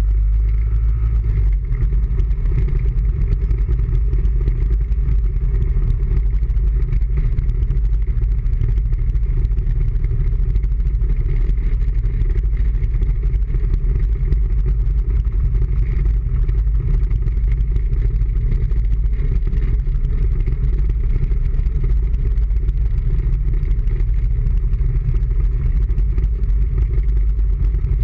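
Engine of a small vehicle running at a steady cruise, with heavy wind rumble on a front-mounted camera microphone as it drives.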